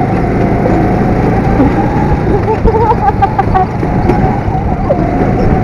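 Go-kart engine running at speed, heard from the driver's seat, its note holding a steady pitch that drops away briefly about four seconds in and then returns, over a constant low rumble.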